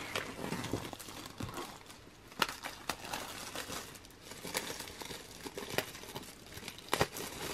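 K-pop CD album packaging crinkling and rustling as it is picked up and handled, with a few sharp taps and clicks, the sharpest near the end.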